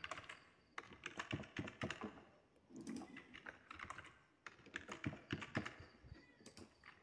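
Typing on a computer keyboard: faint runs of quick key clicks with a few short pauses between them.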